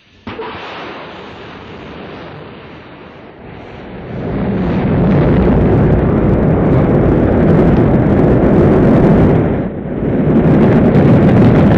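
Rocket launch roar: a sudden blast just after the start, then a deep rushing rumble that swells much louder about four seconds in. It dips briefly near the end, then comes back.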